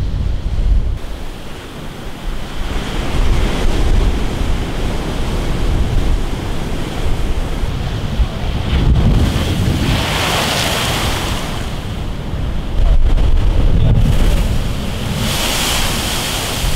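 Heavy storm surf breaking against a concrete sea wall, the hiss of crashing waves and spray swelling in several big surges. Wind rumbles on the microphone throughout.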